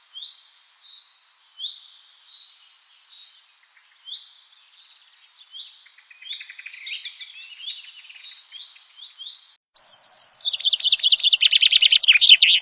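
Birds chirping with quick, high sweeping notes. About ten seconds in the sound cuts suddenly to a louder, rapid chattering trill.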